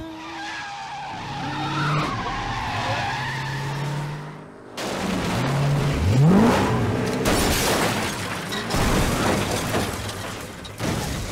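A van's engine running, then about five seconds in a sudden crash as it leaves the road and ploughs into brush. The engine revs up as the van skids through dirt and scrub, with branches snapping and debris flying.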